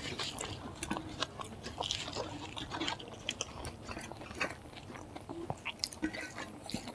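Close-up mouth sounds of a person chewing rice and pork curry: soft, wet chewing clicks and lip smacks repeating irregularly, with light squelching as fingers mix rice and gravy on a metal plate.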